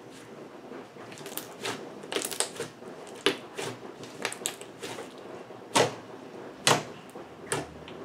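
Pink butter slime made from mixed foam and modelling clays, kneaded and pressed flat by hand: soft squishing with a run of sharp sticky pops and clicks as trapped air bubbles burst. The two loudest pops come a little over halfway through.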